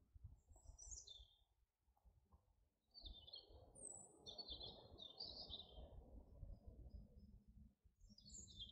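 A songbird singing faint, short phrases of high chirps, several times with pauses between, over a faint low rumble.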